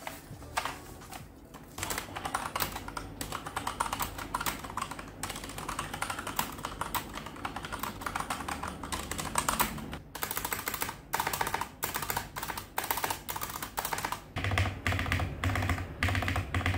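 Typing on a Digital Alliance Meca Fighter tenkeyless mechanical keyboard with its stock, unmodded Otemu Red linear switches: a fast, continuous run of key clacks with a short pause about ten seconds in.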